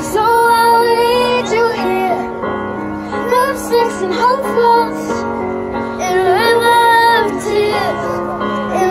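A young girl singing gliding, held notes over a recorded pop-ballad backing track.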